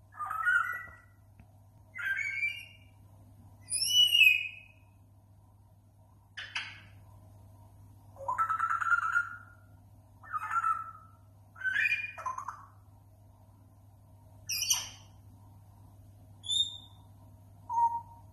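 African grey parrot giving a string of about ten short whistles and squawky calls, one every second or two, some sliding in pitch, as it mimics assorted sounds.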